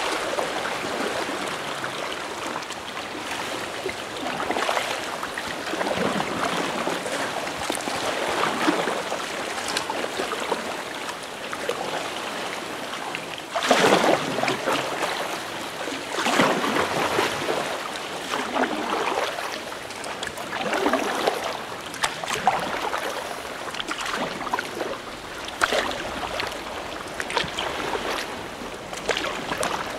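Sea water splashing and rushing against a kayak on a choppy sea, swelling up in surges every couple of seconds, the loudest about halfway through.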